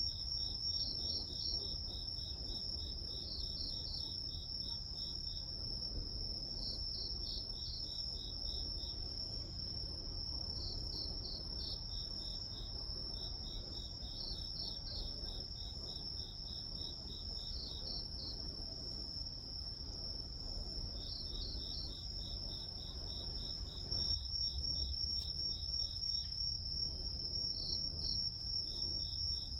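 Chorus of crickets and other grass insects: one high, unbroken trill, with trains of rapid pulsed chirps from another insect repeating every few seconds, over a low rumble.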